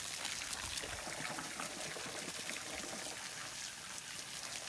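Water running steadily and pouring into a soapy container, frothing it up into bubbles.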